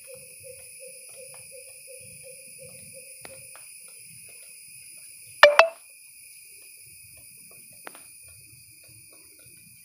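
Steady high-pitched insect drone, with a low call repeating about three times a second for the first three and a half seconds, and a single brief, loud sharp sound about halfway through.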